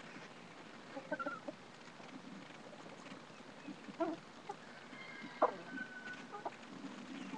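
Backyard chickens clucking softly, a few short, scattered calls from the flock.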